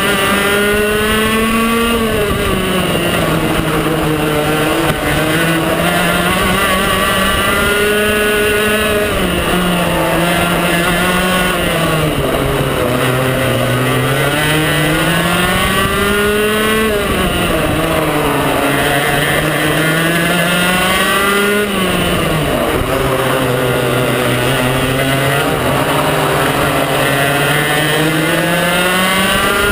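125cc two-stroke TaG racing kart engine at full race pace, heard onboard. Its high, buzzing note climbs steadily as it revs out along each straight, then drops sharply when the driver lifts and brakes for a corner, about five times over.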